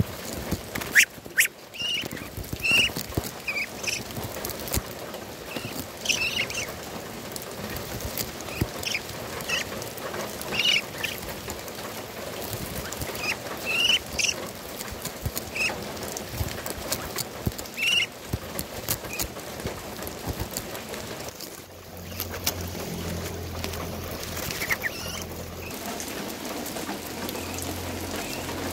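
Young Muscovy ducks giving short, high peeping calls, one every second or so, over a steady patter of rain. A low steady hum comes in about three-quarters of the way through.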